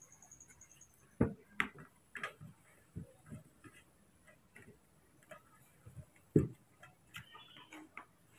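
Small knife peeling a papaya over a plastic plate: scattered light clicks and taps of the blade and the peel against the plate and a metal tray, with the sharpest knocks about a second in and again past six seconds.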